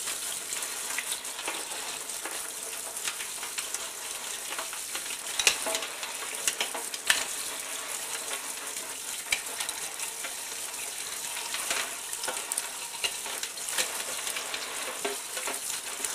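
Kitchen faucet spray hissing steadily onto live crawfish in a stainless steel sink, with scattered small clicks and a few louder knocks as the crawfish are handled against the metal; the loudest knocks come about five and a half and seven seconds in.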